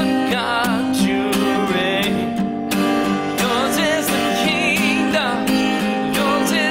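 A man singing a slow worship song with vibrato, to his own strummed steel-string acoustic guitar, about two strums a second.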